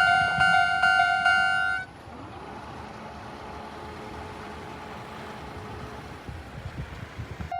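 Railway level-crossing warning alarm ringing in even strokes about twice a second, which cuts off suddenly about two seconds in. After that only a low, steady background noise remains, with some low rumbling near the end.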